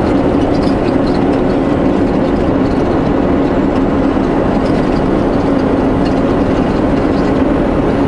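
Semi-truck's diesel engine running steadily under way, heard from inside the cab as an even drone over road rumble.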